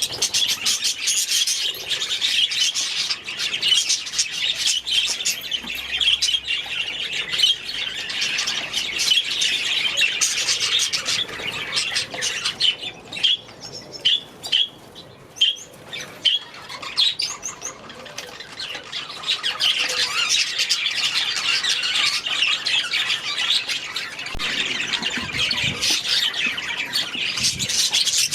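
A flock of budgerigars chattering, a dense high-pitched warble mixed with chirps and squawks. About halfway through, the chatter thins for several seconds to a few separate sharp chirps, then the full flock chatter comes back.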